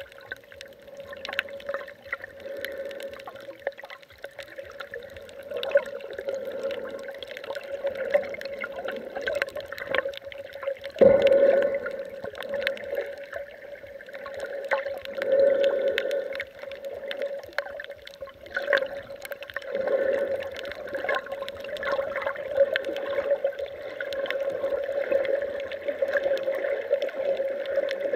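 Water sloshing and surging, heard from just under the surface through an underwater camera's case, with scattered crackling clicks and a steady hum. The loudest surge comes about eleven seconds in, with smaller ones later.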